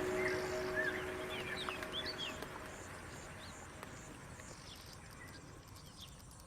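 Background music with held notes fading out, over scattered short, high bird chirps that thin out as the sound dies away.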